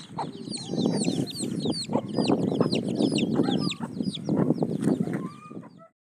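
Aseel chicks peeping busily: many quick, high, downward-slurred cheeps, several a second, over a louder low rumbling noise. The sound cuts off suddenly near the end.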